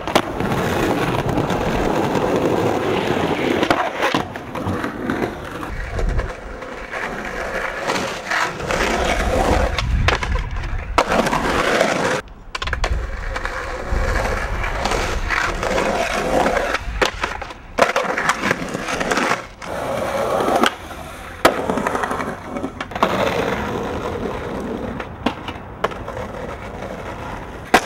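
Skateboard wheels rolling over rough concrete, broken by sharp clacks of the board popping and landing tricks. The sound cuts off and restarts abruptly several times.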